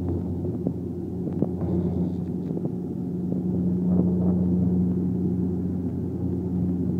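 Cabin noise of a small high-wing propeller plane climbing after takeoff: a steady engine and propeller drone with a low hum, and a few light clicks.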